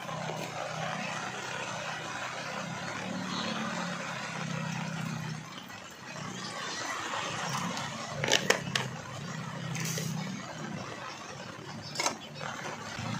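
Water poured from a plastic bottle into an aluminium camping kettle, with a few sharp clicks from the kettle and its lid, the loudest about two-thirds of the way in and another near the end. A steady low hum runs underneath.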